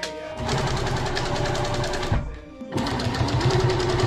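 Juki industrial sewing machine stitching at speed in two runs, with a short stop about two seconds in.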